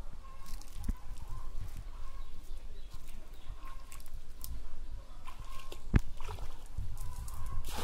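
Legs sloshing through shallow pond water as a man wades, over a low uneven rumble, with one sharp click about six seconds in and a rush of noise near the end.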